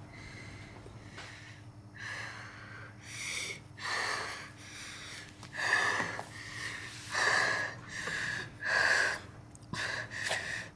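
A girl breathing audibly through her open mouth: heavy, gasping breaths that start about two seconds in and come louder and faster toward the end, over a faint steady room hum.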